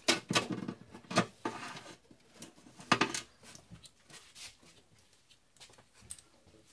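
Hands and braided fishing line scratching and rubbing along the bottom edge of a windshield and its cowl trim as the line is fed through: a handful of brief scratches in the first three seconds, the loudest about three seconds in, then faint rustling.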